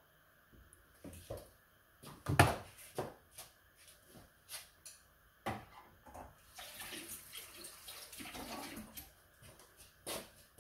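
Wooden spoon stirring thick porridge in a metal pot, with scattered knocks and clicks against the pan, the loudest about two and a half seconds in. After the spoon is set down, a few seconds of steady hiss of water running from a tap, then one more knock near the end.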